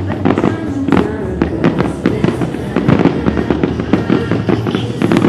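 Aerial fireworks shells bursting in quick succession, a dense run of sharp bangs and crackles, with music playing underneath.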